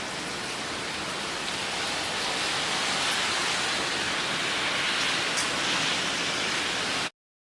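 Steady rush of heavy typhoon rain from Typhoon Hagibis, building slightly, then cutting off abruptly about seven seconds in.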